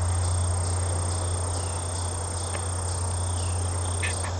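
Insects singing outdoors: a continuous high-pitched trill, with a steady low hum underneath.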